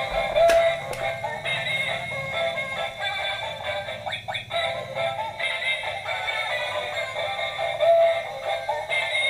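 An egg-laying toy duck, battery-powered and switched on, playing an electronic tune with a synthetic singing voice. A couple of sharp clicks come about half a second and a second in as its plastic eggs drop out onto the tile floor.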